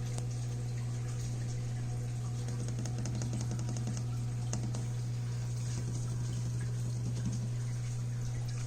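Aquarium equipment humming steadily, with water bubbling and trickling and small crackling clicks over it.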